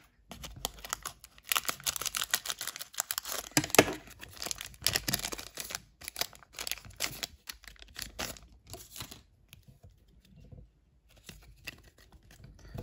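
Foil wrapper of a Panini Wild Card Matte trading card pack crinkling and crackling as it is handled and torn open. There is a dense run of sharp crackles that thins out and goes quieter for the last few seconds.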